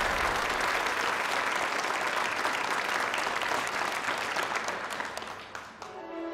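Audience applause, a dense even clapping that dies away about five seconds in. Music begins near the end.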